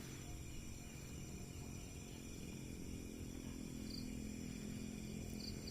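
Night ambience of crickets and insects chirring steadily, with a faint low hum coming in about halfway through.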